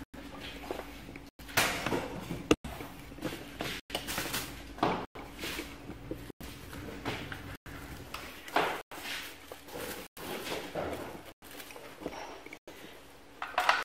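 Faint indoor handling noises, soft clatter and shuffling. The sound cuts out for an instant about every second and a quarter.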